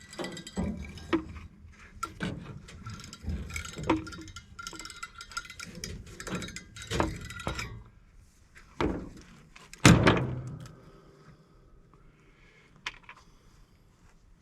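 Metal scrap parts and hand tools clinking and knocking while a fitting is worked loose. There is a busy run of small clanks, then one loud metallic clank about ten seconds in, then it goes quiet.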